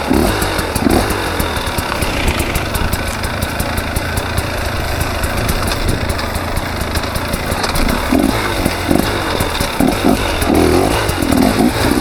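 A KTM 300 XC two-stroke dirt bike engine runs under short, repeated blips of throttle. Frequent short clicks and knocks are heard throughout.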